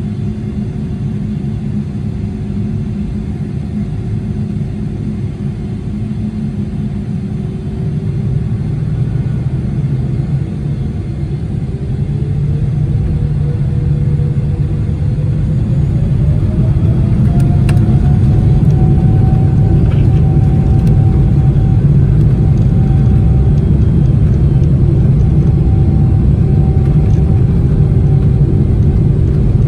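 Boeing 777-300ER's GE90-115B turbofan engines heard from inside the cabin: a low, steady running with a whine, which from about a third of the way in rises in pitch and grows louder as the engines spool up to takeoff thrust, then holds steady at the higher level.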